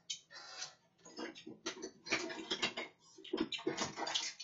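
A run of quick clicks and clatters, busiest in the second half: oysters in their shells knocking together in a styrofoam box as it is pulled out and handled.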